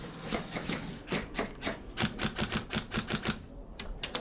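Airsoft guns firing: a string of sharp clicking shots, coming faster, about seven a second, from about two seconds in.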